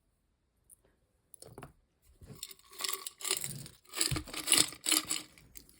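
Loose pieces of vintage costume jewelry (earrings, rings, watches, chains) clinking and jangling against each other as they are rummaged through by hand. The clatter starts about a second and a half in and grows busier and louder.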